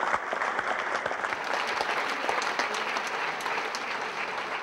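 Theatre audience applauding: dense, steady clapping from a large seated crowd, easing off near the end.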